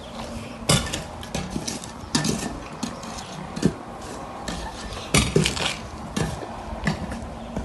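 Shovel digging a trench: irregular scrapes and clinks of the metal blade in the soil, the strongest strokes about every second and a half.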